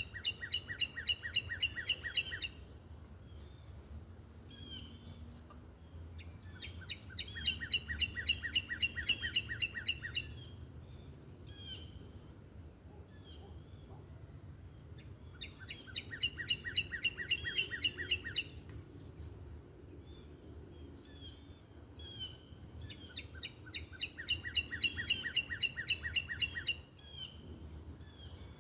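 A songbird singing in four bouts of rapid, evenly repeated chirps, each bout lasting a few seconds, with softer single calls between them. A low steady rumble runs underneath.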